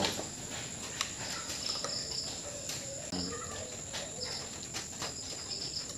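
Insects chirping in the background, short high chirps repeating every second or so over a steady high hum, with a couple of light clicks from a screwdriver working on a circuit board.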